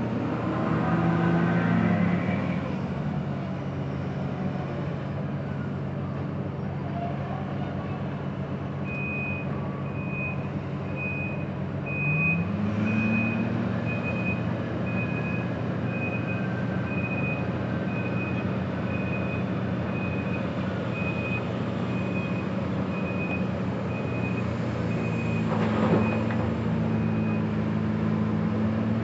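Mining haul truck's back-up alarm beeping about once a second over the steady running of heavy diesel engines, whose note steps up partway through as the truck reverses into loading position beside the excavator. A single sharp knock near the end.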